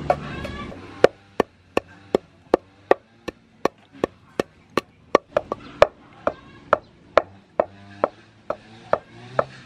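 Wooden pestle pounding black peppercorns in a wooden mortar: a steady run of sharp knocks, about two and a half a second, starting about a second in.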